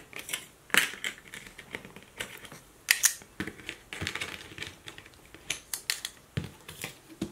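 Small wooden scrapbook embellishments clicking and clattering against each other and a hard tabletop as they are picked up and stacked by hand, in irregular light taps.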